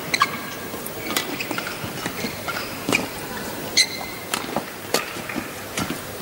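Badminton rally: rackets striking a feather shuttlecock with sharp cracks about a second apart, with short squeaks of shoes on the court floor.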